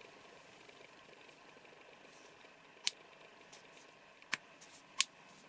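A few sharp, light clicks, about four spread over the last few seconds, from handling the Ledlenser P5R LED torch, over faint room tone.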